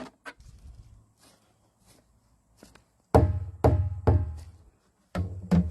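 Hollow, drum-like knocks on something resonant: three about half a second apart, then a couple more near the end, each ringing briefly.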